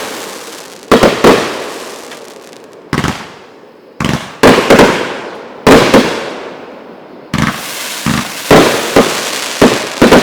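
Two Rock It 500 g firework cakes firing together, their aerial shells bursting with sharp bangs in irregular clusters, each bang trailing off in a fading hiss.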